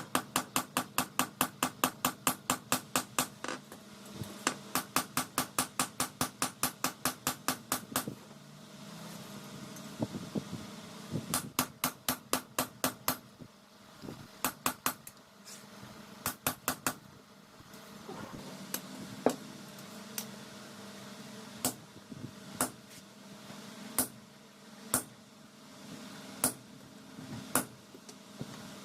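Hammer striking hot leaf-spring steel on an anvil in forging a dao blade: quick runs of sharp ringing blows about four a second, with pauses, then slower single blows in the second half.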